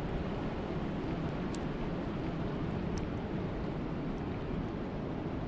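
Wind and rain: a steady low rush of wind with the hiss of rain, and a few faint ticks.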